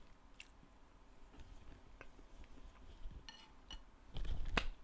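Wooden spoons set down on a ceramic dessert plate, with a dull knock and a sharp click a little past four seconds in, after a few faint small clicks.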